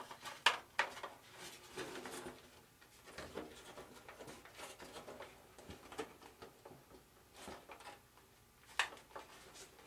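Hands working a pull string and wire lead through an RC airplane's covered wing: scattered light clicks and rustles of handling, the sharpest clicks about half a second in and near the end.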